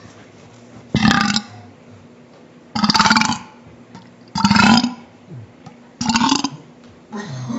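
A child burping again and again: four loud burps, each about half a second long, come about every one and a half seconds, and a fifth starts near the end.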